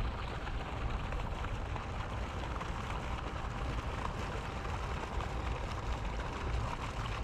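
Steady outdoor background noise with a low rumble and an even rushing hiss, without distinct events.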